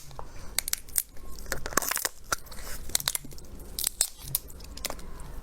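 A person biting into and chewing crunchy food, with sharp, irregular crunches close to the microphone.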